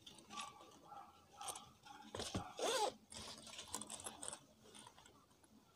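Rustling and small clicks from handling a zippered satin pouch, with one louder, briefly rising sound about halfway through.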